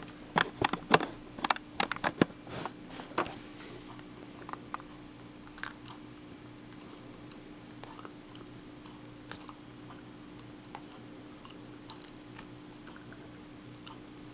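Dachshund biting and crunching a green Dentifresh dental chew stick held in a hand: a quick run of loud crunches in the first three or four seconds, then scattered fainter clicks of chewing.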